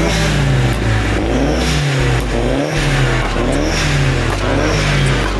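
Drift car engine revving hard up and down again and again, about once a second, as the car slides sideways on the asphalt, with tyre noise under it.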